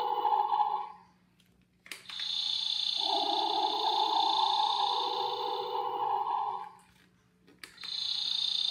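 Battery-powered light-up toy gun playing its electronic sound effect in stretches of a few seconds. The sound stops about a second in, comes back after a click about two seconds in, stops again near seven seconds, and restarts after another click near the end.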